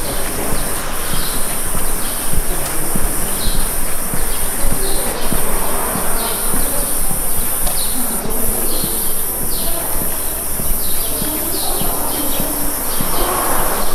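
Cicadas shrilling in a steady high drone, with small birds chirping in short falling notes every second or so.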